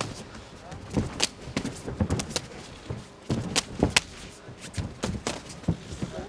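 Sharp smacks of Muay Thai kicks and punches landing, about a dozen irregular strikes over a few seconds, with voices shouting in the background.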